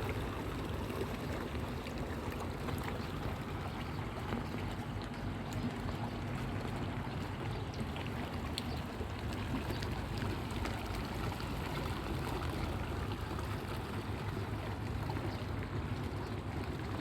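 Water falling steadily down a wall waterfall, a continuous rush of running water.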